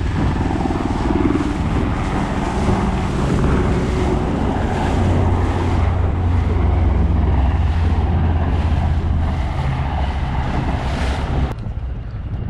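Small fishing boat under way over choppy water: a steady low motor hum under heavy wind buffeting on the microphone and water rushing and slapping at the hull. The noise drops away abruptly near the end.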